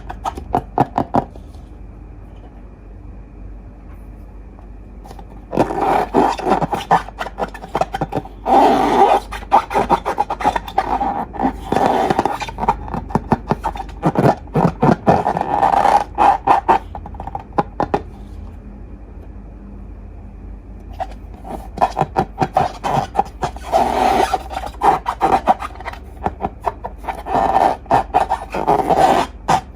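Slime being squeezed and worked by hand, making dense runs of sticky clicking and crackling, with two short pauses.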